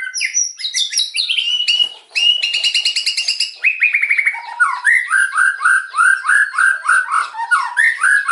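White-rumped shama (murai batu) singing a loud, varied rapid-fire song: a fast trill of repeated notes about two seconds in, then a run of repeated falling whistled notes, about three a second, through the second half.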